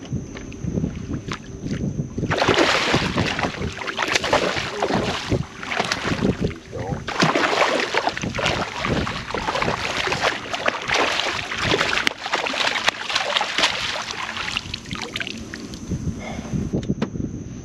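Hooked redfish thrashing and splashing at the water's surface beside a kayak while it is scooped into a landing net. The splashing starts suddenly about two seconds in, comes in two long bouts with a short lull between them, and eases off near the end.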